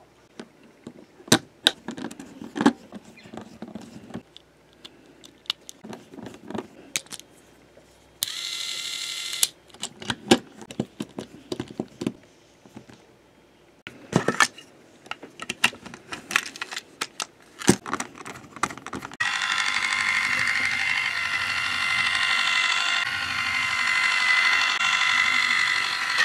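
Clicks and taps of small plastic parts being handled and snapped together, with a brief mechanical whirr about eight seconds in. From about nineteen seconds a Thomas Trackmaster Stafford toy train's battery-powered motor and gearbox runs with a steady whirring whine, its gears freshly greased.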